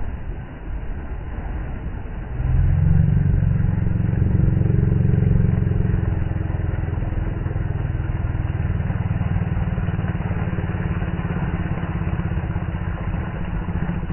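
Sea surf breaking and washing over rocks: a steady low rumble that grows louder about two and a half seconds in.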